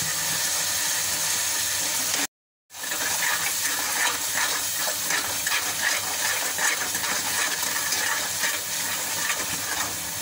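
Onion-tomato masala sizzling in hot ghee in a metal pot, with a steel ladle stirring through it and clicking and scraping against the pot from about three seconds in. The sound cuts out completely for a moment just after two seconds in.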